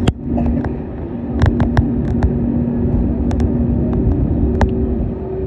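Cabin noise of an Airbus A321neo with its Pratt & Whitney PW1100G geared turbofan engines running: a steady low rumble with a steady hum, broken by a scatter of short sharp clicks and ticks.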